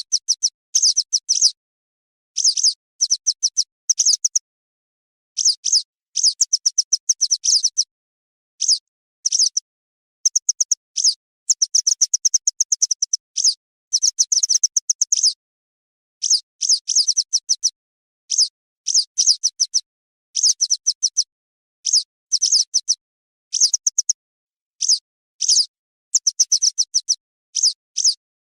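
Western yellow wagtail calls: runs of short, high-pitched notes in quick succession, coming in bursts with brief silent pauses between them.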